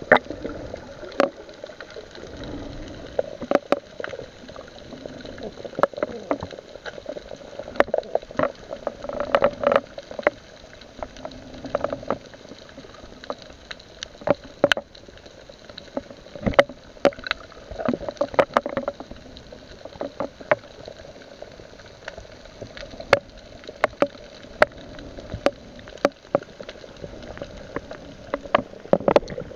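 Muffled underwater sound heard through a submerged camera: a low water rush with irregular sharp clicks and knocks, several a second at times.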